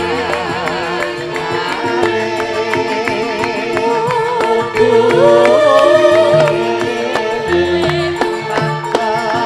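Javanese gamelan (karawitan) ensemble playing, with a female pesindhen singing a wavering, ornamented line through a microphone over struck metallophone notes and low sustained tones; her voice drops out about two-thirds of the way through while the ensemble plays on.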